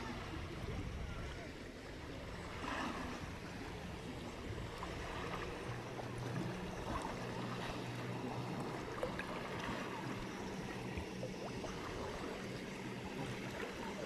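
Shallow seawater lapping over a sandy bottom at the water's edge, a faint, even watery wash with a steady low hum underneath.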